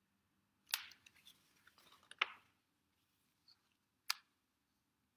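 Picture book pages being turned by hand: three short, quiet paper rustles and flicks about a second and a half apart.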